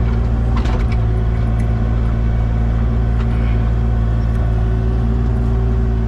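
Excavator's diesel engine running steadily at a constant pitch while digging soil away from a buried heating-oil tank.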